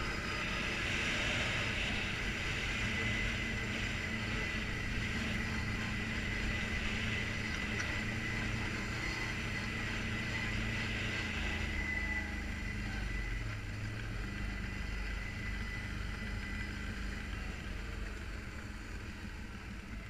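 ATV engine running steadily under way on a gravel dirt trail, with tyre and wind noise and a steady high whine; the engine eases off somewhat in the second half.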